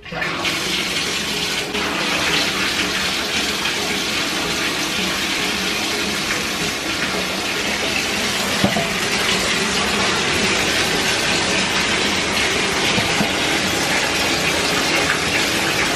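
Bathtub faucet turned on, water pouring steadily into the tub, starting suddenly. A single short knock about halfway through.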